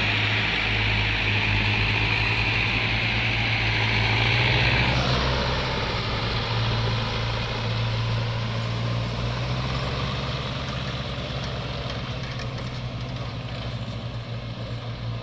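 Diesel farm tractor engines running steadily under load as several tractors hitched in tandem pull a loaded sugarcane trolley. A higher-pitched noise over the engines falls away about five seconds in, and the engines grow fainter near the end.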